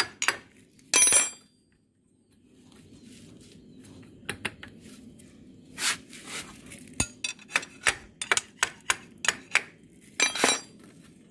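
A steel wrench tapping and clinking against a Honda CB150R's starter motor to knock it loose from the engine case after its bolts are out: a string of sharp metallic taps, several a second in places, with a few louder knocks.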